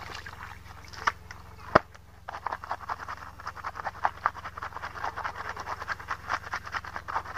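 Wet clothes scrubbed by hand on a stone slab: rapid rubbing strokes, about four a second, starting a little over two seconds in. Before that, a couple of sharp knocks, the loudest just before two seconds in.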